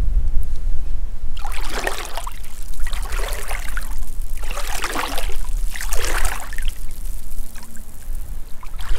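Feet wading through shallow seawater: four sloshing splashes, roughly one every second and a half.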